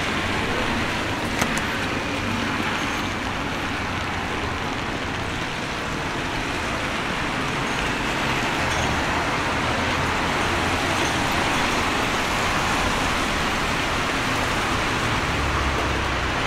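Steady road traffic on a rain-wet street: a constant hiss of passing vehicles.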